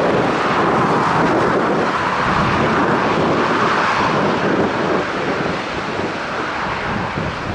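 Ryanair Boeing 737's jet engines at takeoff power during its takeoff roll: a loud, steady rushing roar that eases slightly in the second half.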